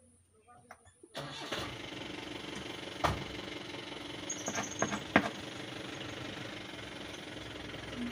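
A motor starts abruptly about a second in and keeps running steadily, with a few sharp clicks and knocks over it, the loudest a little after halfway.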